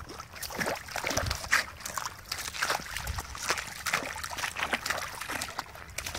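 A blue merle Australian Shepherd's paws splashing and sloshing through shallow icy water, with irregular clinks and crackles of thin broken ice shards around its feet.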